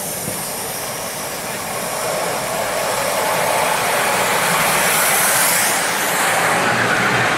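5-inch gauge live-steam model of a Southern Railway Class L1 4-4-0 running on its track: a steady rushing hiss of steam and running noise, growing louder about two seconds in as the engine and its riding car pass close by.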